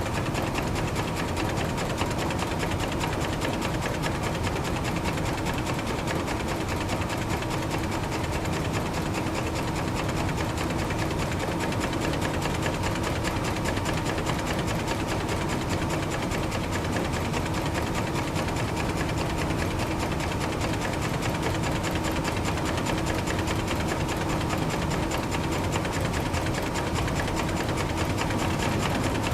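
Warehouse machinery running steadily: a fast, even mechanical clatter over a constant hum, loud and unbroken.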